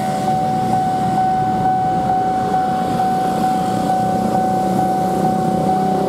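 Railway level-crossing warning alarm sounding a steady high tone with a light pulse about twice a second while the barrier is down, over the engine noise of waiting traffic.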